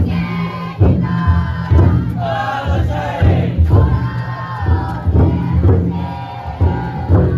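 A large group of futon daiko bearers loudly chanting and singing together as they carry the float, over the thuds of the float's big taiko drum.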